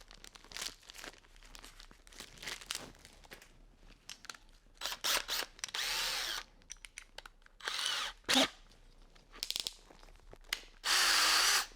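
Power drill run in a few short bursts, the last and loudest about two-thirds of a second, between clicks and rattles of handling while the bit is swapped for a larger one.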